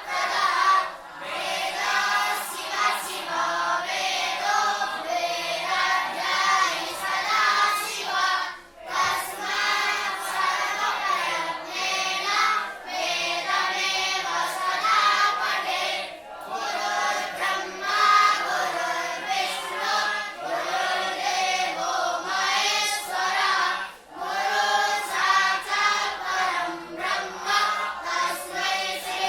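A group of young voices chanting a devotional chant in unison, with short pauses for breath about nine seconds in and again near twenty-four seconds.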